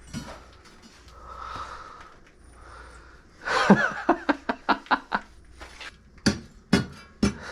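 Hard breathing, then hand digging in a trench through a basement floor slab: a metal tool scrapes into the fill and strikes it about nine times, six quick strikes followed by three slower ones, while the crew searches for the buried drain pipe.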